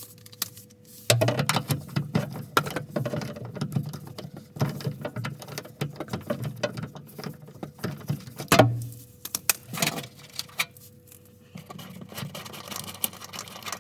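Irregular clicks, scrapes and rattles of hands prying at the plastic housing of a car's spare tire winch, with a couple of louder knocks, about a second in and past the middle.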